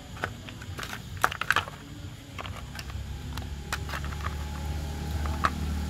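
Plastic clicks and knocks from the black plastic air-filter cover of a Komatsu Zenoah brush cutter engine being handled and fitted over the carburettor, with a quick cluster of sharper clicks about a second and a half in. A low steady hum runs underneath and grows a little louder after the middle.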